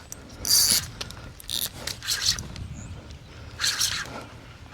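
Fishing reel drag giving line in several short buzzing bursts as a big hooked redfish pulls against it.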